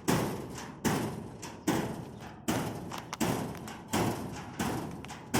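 Brown bear banging on its cage over and over in a steady rhythm, about eight heavy blows, one every three-quarters of a second or so, each ringing away before the next. The bear is agitated.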